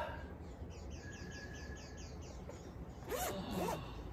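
Zipper of a quilted portable sauna blanket being pulled open in two quick strokes about three seconds in.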